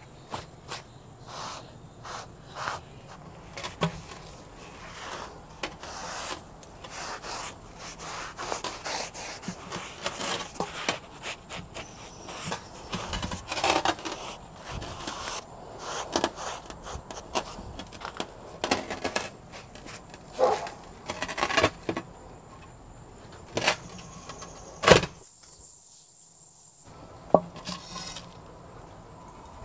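Cloth rubbing and wiping over the surface of a large planter: a long run of irregular scrubbing strokes, with a few sharp knocks in the last third as the pot is handled.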